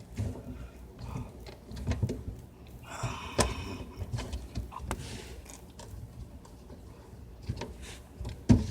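Sink drain pipe fittings being loosened and pulled apart by hand: scattered clicks and knocks, with a brief rush of noise about three seconds in.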